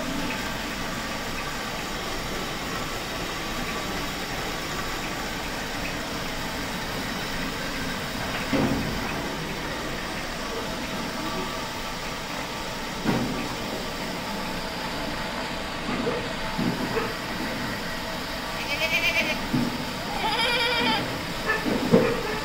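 Goats bleating several times near the end in wavering, quavering calls, over a steady background hiss of the pen with a few soft knocks earlier on.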